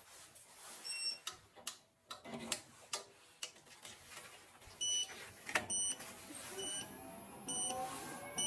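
Short high electronic beeps from a thermostat: one about a second in, then five spaced about a second apart in the second half, with scattered clicks and knocks of handling in between.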